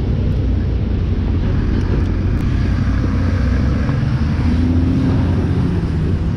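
Steady low engine rumble of running vehicles, unbroken throughout.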